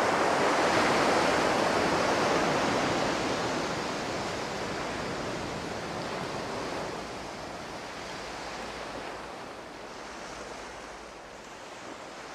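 A steady rushing noise like ocean surf, loudest at first and slowly fading away.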